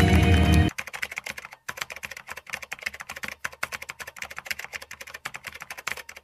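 Loud music cuts off under a second in. It is followed by rapid, continuous computer keyboard typing clicks, a typing sound effect that runs while on-screen text is typed out.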